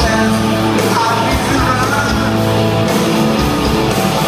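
Live rock band playing loud, with electric guitars, bass, drums and a sung lead vocal, recorded from within the crowd. The low bass note changes about three seconds in.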